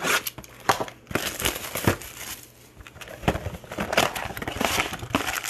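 Foil trading-card pack wrappers crinkling and rustling as they are handled, with many irregular sharp crackles.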